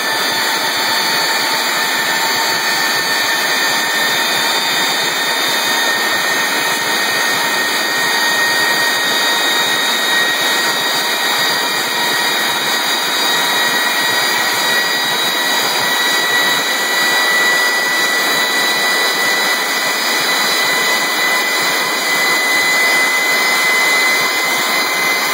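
Airbus A300 turbofan engine running on the ground: a steady, loud rush of noise with a high whine that creeps slowly upward in pitch.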